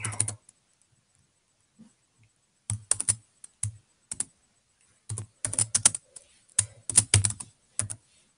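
Typing on a computer keyboard: a quick run of key clicks at the start, a pause of about two seconds, then several short bursts of clicking as a short word is typed out.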